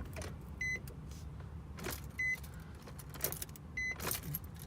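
Nissan 350Z warning chime: a short, high electronic beep repeating about every one and a half seconds, three times, with light clicks and handling noise around it.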